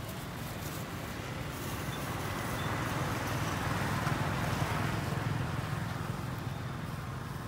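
A motor vehicle passing by: a steady low rumble that swells to a peak about four seconds in and then fades.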